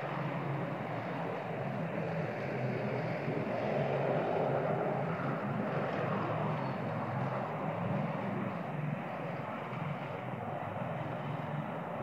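A steady engine drone that swells a little around four seconds in, then eases back.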